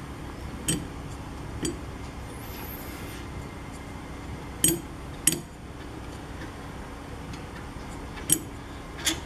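Small metallic clicks, about six at irregular intervals, as the release screw of a hydraulic floor jack is turned out by hand.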